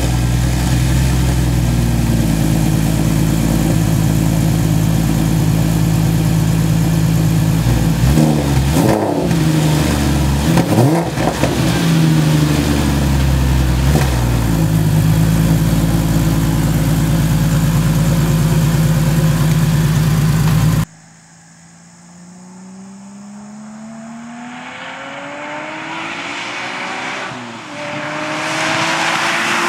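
Porsche Cayman S engine through a custom exhaust, running loud and steady with a few quick revs in the middle. After an abrupt cut about 21 seconds in, the car is heard accelerating, its pitch rising, dipping at a gear change, then rising again.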